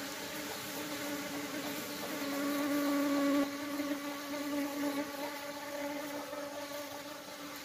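Honeybees buzzing at the hive entrance, a steady wingbeat hum. It swells about two seconds in and drops off suddenly about halfway through, as a bee flies close and away.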